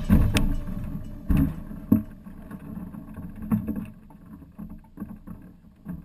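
Hang glider landing on grass: a few irregular thumps and knocks from the pilot's footfalls and the glider's frame jolting, over low rustling that fades as the glider comes to rest.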